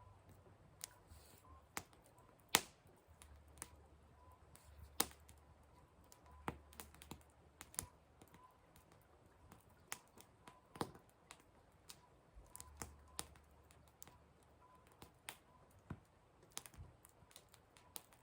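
Firewood burning, crackling with irregular sharp pops and snaps, the loudest about two and a half and five seconds in.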